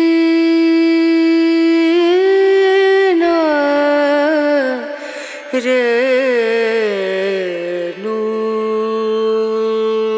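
Background music: a single voice singing slow, chant-like long-held notes, sliding and wavering between pitches in the middle.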